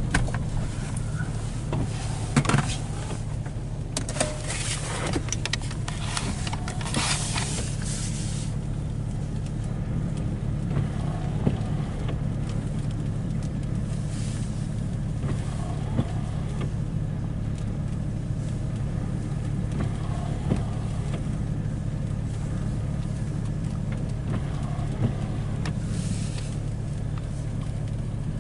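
Steady low hum of a car's engine and road noise heard inside the cabin. From about two to eight seconds in there is a stretch of louder hissing and rustling.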